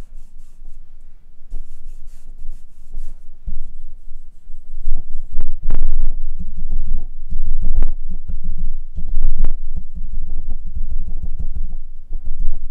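Handling noise of a Neewer NW-088 aluminum boom pole heard through the shotgun mic mounted on it: fingers rubbing, gripping and tapping the foam grip and the bare aluminum tube, giving low rumbles and thumps with sharper knocks. The taps distort. The rumbles grow louder about four seconds in. The foam grip proves noisier to handle than the bare aluminum.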